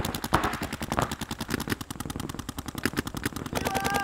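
Paintball markers firing rapid strings of sharp pops, many shots a second, with several guns overlapping.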